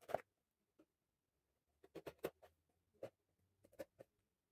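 Scissors cutting open the tape on a small cardboard box: a handful of faint, short snips and clicks with quiet gaps between them.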